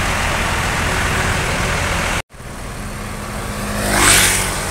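Tour buses passing on the road: steady engine and road noise that cuts out abruptly about two seconds in, then another vehicle swelling past, its tyre and engine noise peaking near the end.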